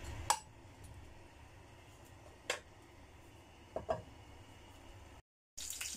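A few light clicks of a spatula against a wok, three or four in all, over a faint low hum; the oil under the ginger, shallots and garlic is not yet hot, so there is no sizzle.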